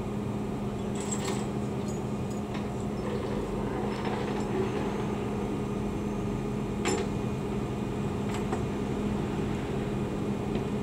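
Steady mechanical hum with a constant low drone, with a few faint clicks now and then.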